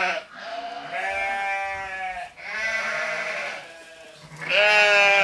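Farm livestock bleating: about four long calls, each lasting around a second, with short pauses between them. The last call, near the end, is the loudest.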